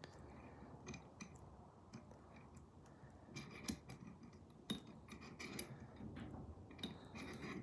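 Faint, irregular metallic clicks and clinks of small steel vise parts being handled and fitted together while the swivel handle is assembled, with a few sharper clicks in the middle and a cluster near the end.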